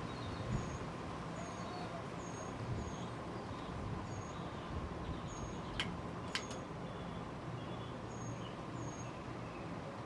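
Vintage 1980s TAT Deluxe ceiling fan running with a steady hum, while short high chirps come at irregular intervals throughout, with two sharp clicks about six seconds in.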